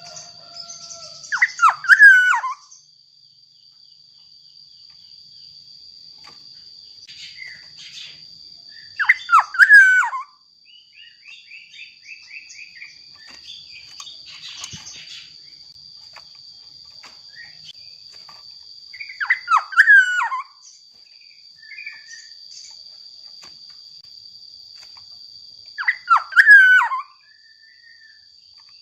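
Black-naped oriole singing: four loud, fluting, falling phrases, each about a second and a half long and several seconds apart, over a steady high-pitched buzz and faint chirps of other birds.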